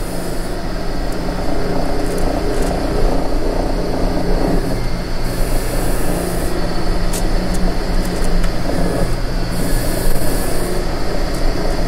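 Electric rotary meat slicer running as it cuts thin slices of Wagyu beef: a steady motor hum with a whir. Two short hissing sweeps come about five and ten seconds in.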